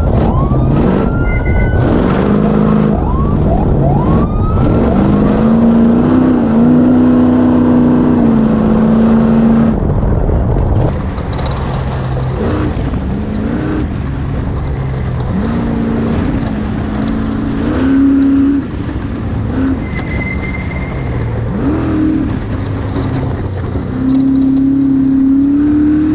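Off-road race vehicle engines revving, the pitch climbing and dropping again and again with gear changes, and held steady for a few seconds in between. About ten seconds in the sound changes abruptly to another stretch of engines revving and easing off.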